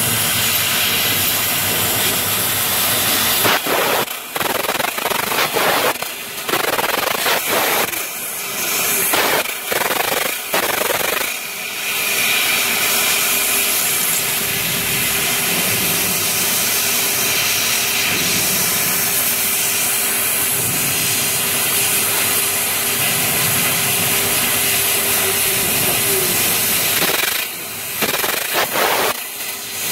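Fiber laser cutter's assist-gas jet hissing through the cutting nozzle as it cuts a fine pattern in thin sheet metal. The hiss breaks off briefly several times in the first dozen seconds and once near the end, with a faint steady hum through the middle.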